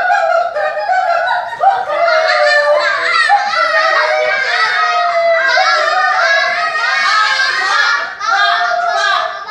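A group of young children singing and calling out together, many high voices overlapping without a break.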